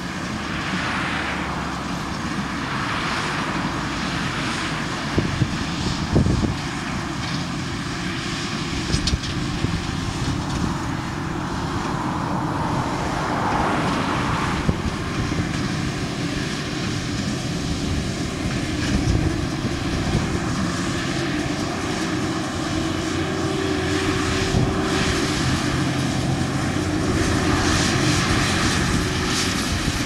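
Fendt 942 tractor's six-cylinder diesel engine running steadily under load while pulling a working Massey Ferguson 2290 large square baler, with scattered knocks from the machinery. The sound grows gradually louder as the outfit approaches.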